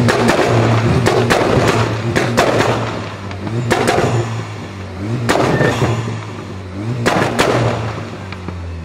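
Volkswagen Golf Mk6 GTI's turbocharged four-cylinder revved hard again and again, about every one and a half seconds, with loud pops and bangs from the exhaust each time the revs drop.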